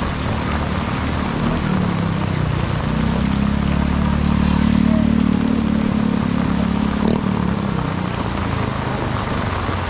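Torrential rain pouring steadily onto the street and stall awnings. A motor vehicle engine swells up under it, loudest about halfway through, then fades away.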